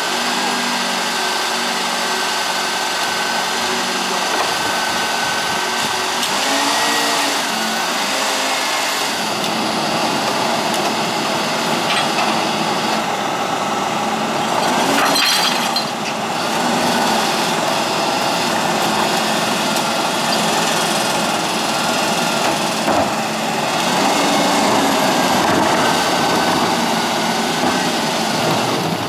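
Sterling Acterra garbage truck with a Pak Mor rear-loader body running, its hydraulic cart tippers lifting and dumping recycling carts into the hopper; the engine and hydraulic whine rise and fall in pitch twice as the tippers cycle. A sharp clatter about halfway through as a cart is emptied into the hopper.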